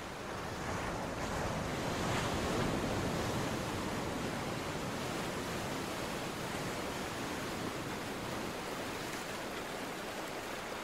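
Sea surf breaking and washing up a sandy beach: a steady rushing wash that swells about two seconds in.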